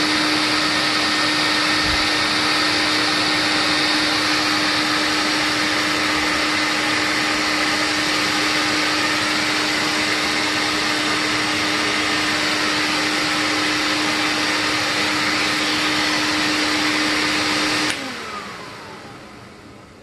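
TriStar canister vacuum cleaner running steadily, a rush of air with a steady hum, its exhaust blowing into a Kirby cloth filter bag taped over the exhaust port. About eighteen seconds in the motor cuts out and winds down with a falling whine.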